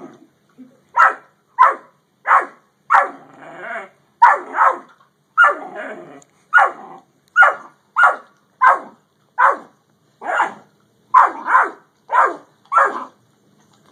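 Great Dane puppy barking over and over at a yellow Labrador holding a bone: a long run of short, sharp barks, about three every two seconds.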